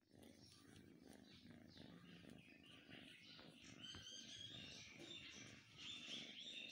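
A kitten purring faintly while being stroked, with birds chirping in the background, most clearly about four and six seconds in.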